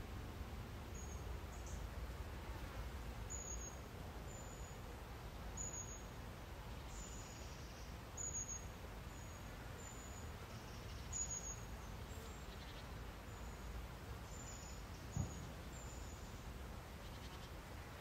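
Woodland ambience: short, thin, high chirps, each falling slightly in pitch, repeated irregularly about once a second over a low steady rumble, with a brief low thump near the end.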